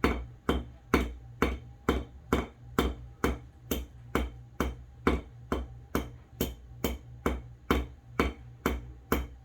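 Small hammer dropped about an inch at a time onto a straight razor's pivot pin, peening it: light metallic taps, about two a second, evenly paced.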